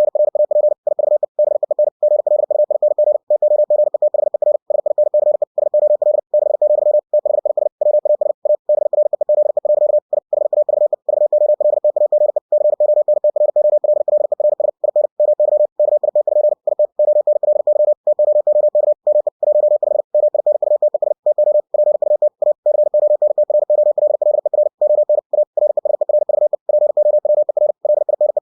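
Computer-generated Morse code (CW) at 60 words per minute: a single mid-pitched pure tone keyed on and off in a very fast, unbroken stream of dots and dashes, with brief gaps between words.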